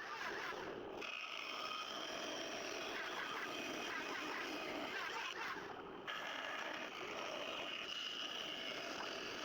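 Band saw running and cutting wood: a steady machine noise with a faint wavering whine, broken by two short dips.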